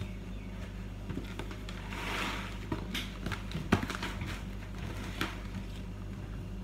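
Groceries being handled on a kitchen counter: a cardboard cereal box rustles about two seconds in, and items knock lightly as they are set down, a few times, the sharpest a little before four seconds in. A steady low hum runs underneath.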